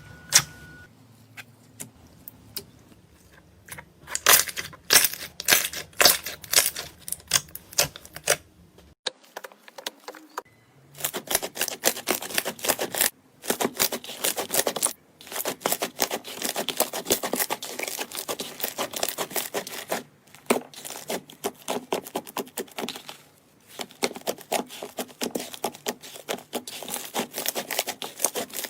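Slime being squeezed and poked by hand, giving rapid crackling clicks and pops in bursts of a few seconds with short pauses between.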